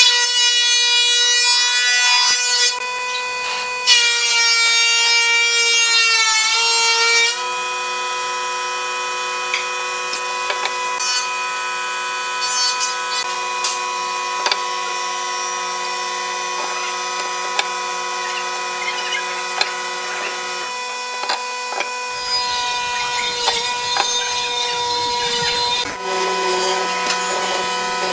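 Workshop woodworking machinery running: a steady motor hum throughout, with two bursts of cutting noise in the first seven seconds, the second dropping in pitch as the machine loads, and a rougher stretch of machine noise near the end.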